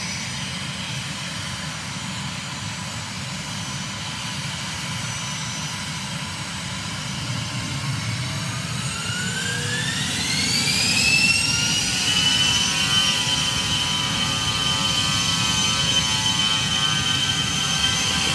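Aircraft turbine engines running at idle, then spooling up with a rising whine that levels off into a steady high whine, as the aircraft parked on the highway readies for takeoff.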